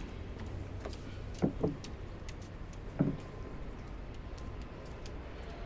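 Outdoor city ambience: a steady low hum of traffic, with scattered light clicks. A quick pair of short, loud low bumps comes about a second and a half in, and another single one about three seconds in.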